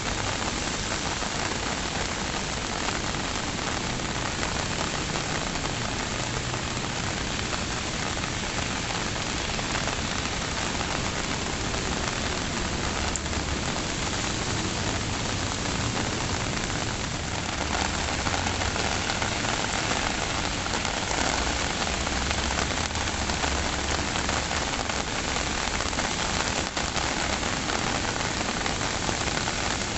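Steady rain falling, a dense even hiss that gets a little heavier about two-thirds of the way through.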